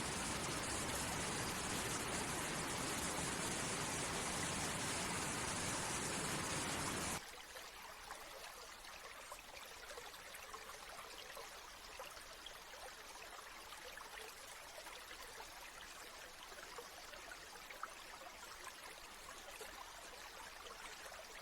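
A dense, steady hiss of rushing water cuts off abruptly about seven seconds in. It gives way to a quieter stream trickling, with many small splashes and drips.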